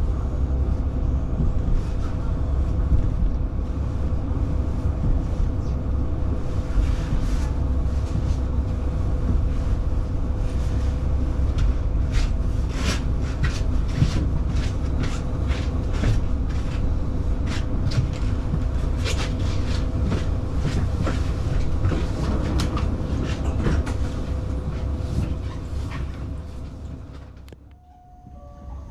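Diesel local train running on the Nemuro Main Line: a steady low rumble with a constant hum, and sharp clicks of the wheels over rail joints. The sound drops away near the end.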